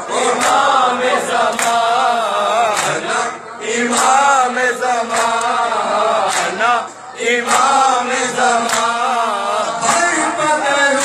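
Male voices chanting a Shia nauha lament, with a group joining the lead reciter. Sharp slaps keep a steady beat of roughly one every half second or so under the chant: matam, chest-beating in time with the lament.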